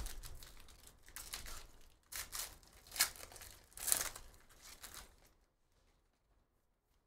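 Trading card pack wrappers being torn open and crinkled, a run of rustling, crackling bursts that stop about five seconds in.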